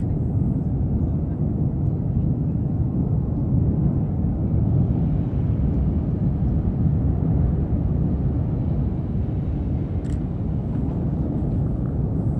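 Tajogaite volcano on La Palma erupting, a steady deep roar from its vent fountaining lava and ash.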